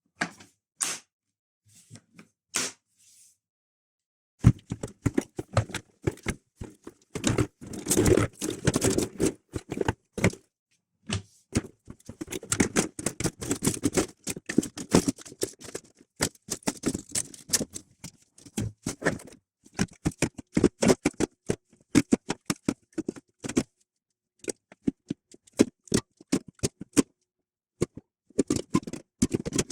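Rapid, irregular clicks, knocks and scrapes of a hard plastic portable cooler being handled, with a brief pause about four seconds in.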